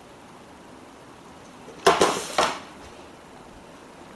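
A cat diving head-first into a small cardboard soda box, sending it skidding and knocking across a wooden floor: a short clattering rattle about two seconds in, lasting about half a second, then quiet room tone.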